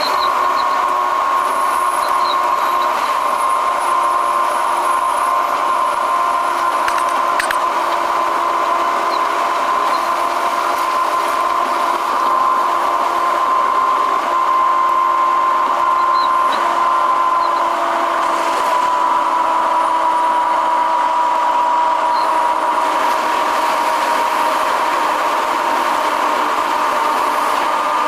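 Cabin noise of a 500 Series shinkansen running at high speed: a steady rush with a whine that drifts slightly lower a little past the middle. It grows briefly louder about halfway through as an oncoming train passes alongside.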